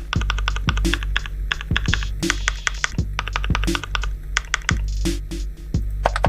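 Rapid, irregular typing clicks from a Mechvibes mechanical-keyboard sound pack, playing back a simulated switch sound with each keystroke. Under it runs background music with a steady beat of deep falling drum hits.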